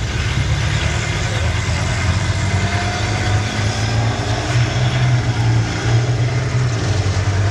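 Heavy diesel engines of tracked armoured vehicles running, a steady low drone with a fainter whine above it.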